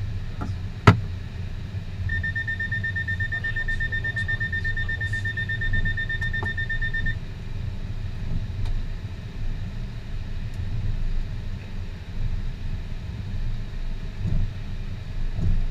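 Airbus A321 flight deck with a steady low rumble from the aircraft, one sharp click about a second in, and a high, rapidly pulsing electronic alert tone lasting about five seconds.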